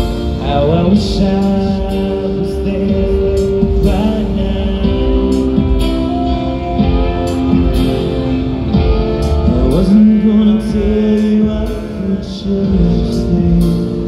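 Live rock band playing loud: held, sustained chords and notes over drums with repeated cymbal hits, and a singing voice that slides between pitches at moments.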